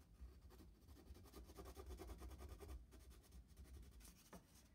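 Faint, repeated scratchy strokes of a brown wax crayon rubbed over a cardboard tube to colour it in.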